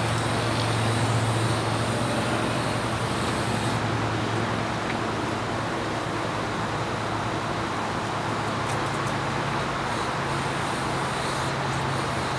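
Steady engine-like hum under a haze of traffic-like noise, its pitch shifting slightly about a third of the way in and again near the end.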